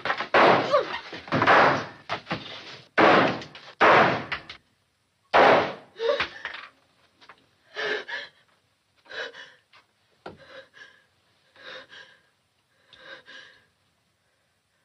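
A rapid series of about six pistol shots ringing in a small room over the first six seconds, then a woman's shaky gasping sobs, about one a second and fading.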